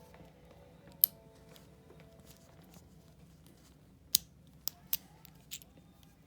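Sharp clicks of small metal latch parts and a spring being pushed and worked into a fridge storm latch by hand: a loud click about a second in, another about four seconds in, then a few lighter ones. Faint music plays underneath.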